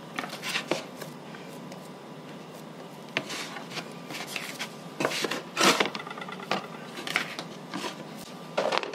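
Hands pressing and rubbing a sticky sourdough dough in a plastic tub: soft rubbing and scraping, with scattered clicks and knocks from the plastic tub and dough scraper being handled, the loudest about five and a half seconds in.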